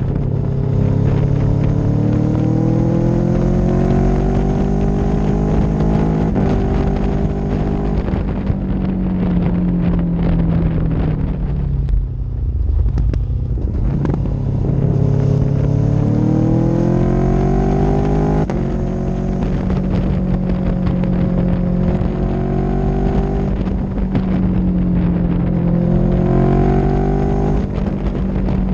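Road vehicle's engine accelerating through the gears: its pitch climbs and then drops back at each upshift, twice. Midway the engine eases off and dips, then pulls and climbs again. Steady wind and road noise run underneath.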